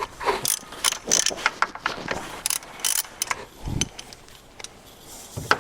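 Hand ratchet with a 10 mm socket on an extension, loosening the bolts of a factory turbo bypass valve: runs of quick, irregular pawl clicks for about three and a half seconds, with a dull thump about two-thirds of the way through.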